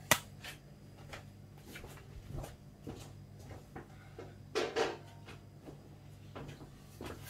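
Scattered light knocks and clicks of kitchen items being handled: one sharp knock at the start, small clicks through the middle and a louder short clatter about four and a half seconds in.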